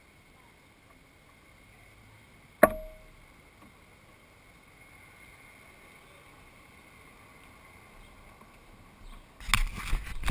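A single sharp click with a brief ring: the car's door latch releasing as the driver's door opens. About a second before the end, loud rustling and knocking from a hand handling the camera right at the microphone.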